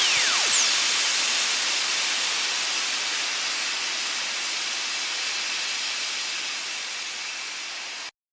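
A long hiss of noise, strongest in the upper range, slowly fading over several seconds and cutting off abruptly near the end. A sweeping pitch glide dies away in the first half second.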